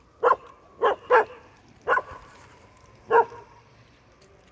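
A dog barking: five short barks, two of them close together about a second in.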